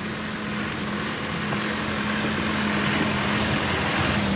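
Diesel farm tractor engine running steadily as the tractor drives past towing a trailer over gravel. Its engine note dips slightly in pitch near the end as it goes by.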